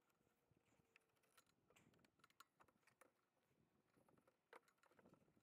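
Near silence, with faint scattered small clicks and ticks of hands handling parts inside the generator compartment.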